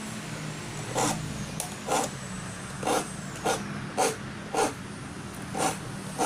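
Hand file rasping across the teeth of a manual hand saw being sharpened, in about eight short strokes roughly half a second to a second apart, over a low steady hum.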